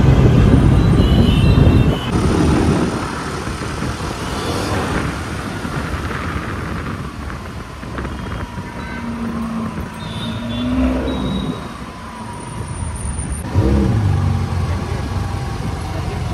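Ferrari California T's twin-turbo V8 driving in city traffic among other vehicles. Loudest in the first two seconds and again from about thirteen and a half seconds in.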